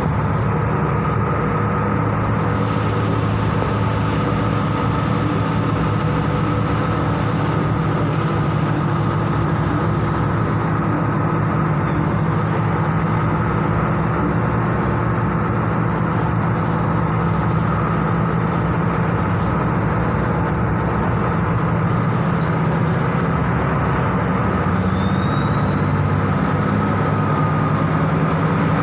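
Bus engine running steadily, heard from inside the bus as a low, even hum. A thin high whine comes in near the end.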